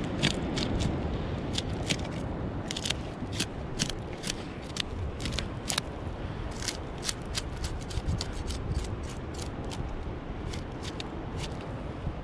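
A knife cutting bait strips from a whole Australian salmon on bare rock. The cutting comes as a string of irregular sharp clicks and scrapes over a steady low rumble.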